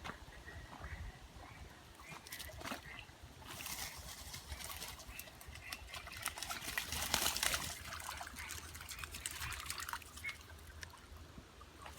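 Rainwater runoff trickling and running after heavy rain, a faint steady flow that swells louder for a few seconds in the middle, with scattered small clicks.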